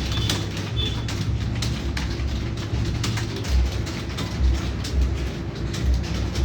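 Steady low background rumble with scattered sharp clicks, and a brief high chirp right at the start.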